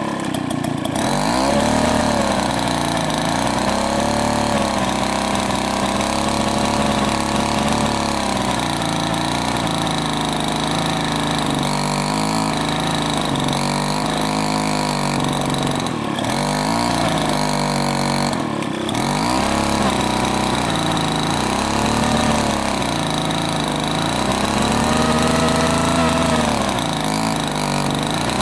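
Mall Model 8 two-man chainsaw running in the cut through a large log, its engine speed sagging and picking up again over and over as it works under load.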